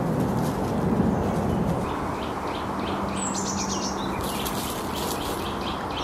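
Small woodland songbirds chirping, with a quick run of high falling notes and a trill from about halfway through, over a steady hiss of background noise.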